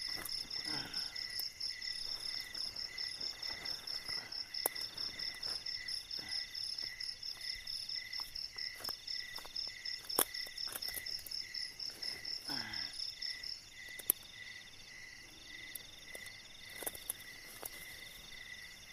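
Night insects chirping in a steady, rapidly pulsing high chorus. The highest-pitched caller stops about two-thirds of the way through, and the chorus grows quieter. A few sharp clicks break in now and then.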